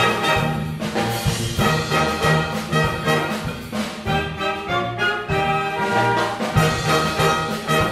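Concert wind band playing a Latin-flavoured piece, with brass (trombones and trumpets) carrying sustained chords over rhythmic percussion.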